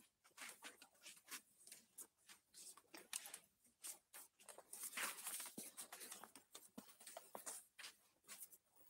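Faint, irregular rustling of paper ballots with small taps and clicks, a little busier about five seconds in.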